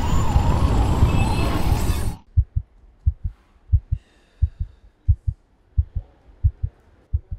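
A loud rushing noise with wavering tones cuts off about two seconds in. It gives way to a heartbeat sound effect: low double thumps at about 85 beats a minute.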